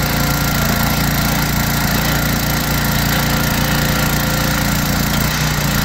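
Small gasoline engine of an Oregon hydraulic log splitter running steadily as the ram is worked to split a log, with a slight change in the engine note near the end.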